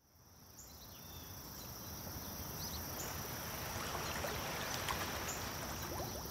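Outdoor ambience fading in from silence: a steady high-pitched insect chorus, with a few faint chirps over a low background hum.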